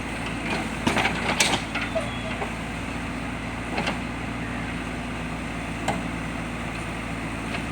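Diesel engine of a JCB backhoe loader running steadily, with several sharp knocks over it, the loudest about a second and a half in.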